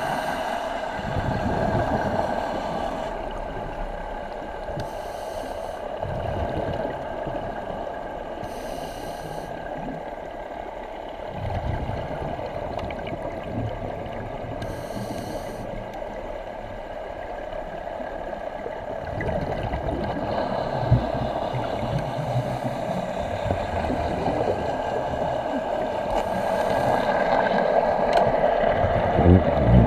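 Underwater sound heard on a scuba dive: a steady drone carried through the water, with the diver's regulator breathing hissing in brief bursts several times and water swishing against the housing.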